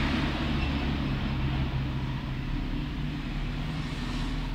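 A steady motor-like hum with a rushing background noise, unchanging throughout.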